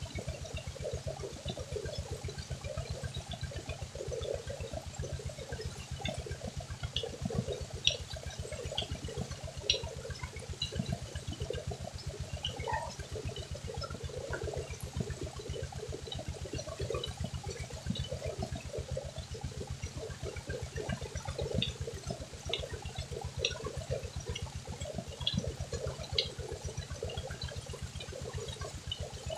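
Tubewell water gushing from the outlet pipe and splashing onto a woven net bed and the ground, a steady heavy splash. Under it, the tubewell pump's engine runs with an even, fast pulsing beat.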